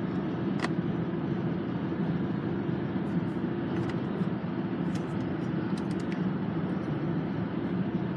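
Steady engine and tyre noise inside a Jeep's cabin while cruising on the highway, with a constant low hum.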